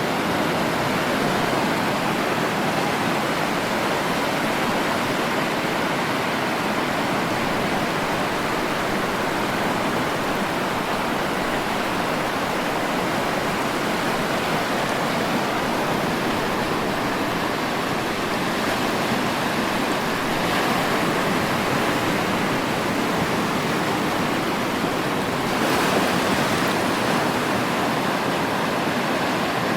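Sea surf washing on a shore, a steady rushing wash of waves, with one slightly louder wave breaking near the end.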